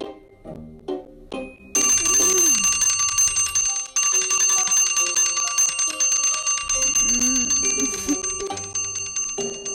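Electric doorbell ringing on and on while its button is held down, starting about two seconds in, with a brief break around four seconds and stopping just before the end. Background music with a bass line runs beneath.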